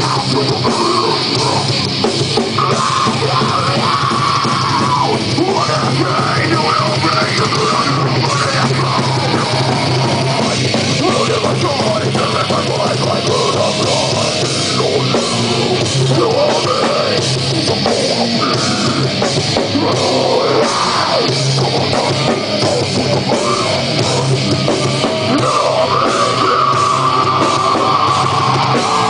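A heavy metal band playing live at full volume: distorted electric guitar over a driving drum kit with steady cymbal hits, heard from within the crowd at the club.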